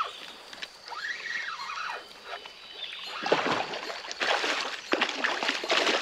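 Water splashing and sloshing in repeated bursts over the last three seconds, after a short squeak that rises and falls about a second in.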